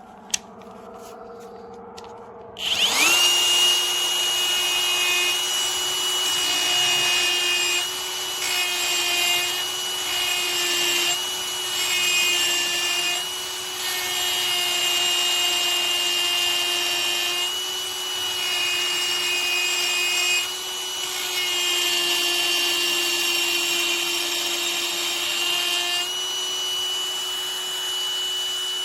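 Cordless grinder spinning up about three seconds in with a rising whine, then running at a steady high whine while its wheel rubs on stainless steel, the rasping swelling and easing as it is pressed on and let off the metal every few seconds.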